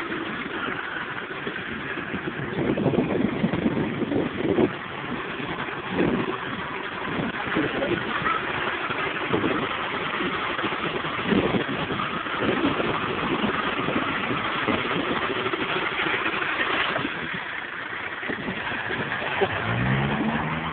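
Range Rover 2.5 turbodiesel engine running as the vehicle crawls across rough grass, rising in pitch as it is revved about a second before the end.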